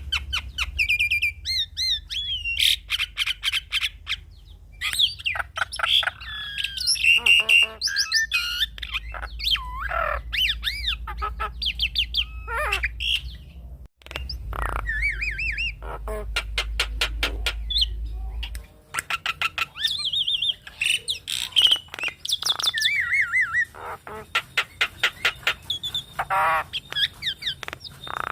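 Javan myna singing a varied, continuous stream of whistles, rapid trills and harsh chattering calls. A low hum sits underneath and stops about two thirds of the way through.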